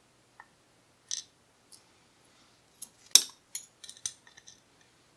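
Small metal lock pins and tools clicking and tinkling against each other and the work surface as the key pins are taken out of the lock's plug. A scattered handful of sharp clicks, the loudest about three seconds in.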